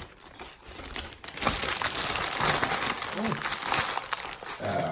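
Crinkling and rustling of paper or a food wrapper close to the microphone, rising and loudest from about a second and a half in, then easing off near the end.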